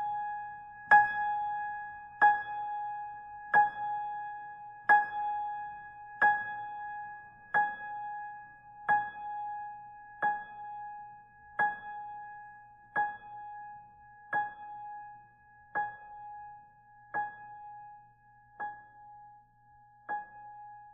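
Closing bars of a piano piece. A single high note is struck over and over, about once every 1.3 seconds, each strike ringing out, and it grows gradually fainter as it fades away.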